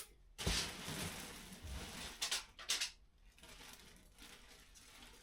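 Handling noise: a rustling scrape lasting about a second and a half, then two short knocks.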